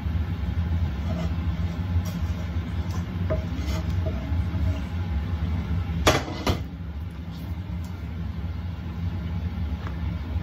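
Wooden spatula scraping sticky, freshly cooked tapioca dough out of a pan into a mixing bowl, with a few light knocks and a sharper knock about six seconds in, over a steady low hum.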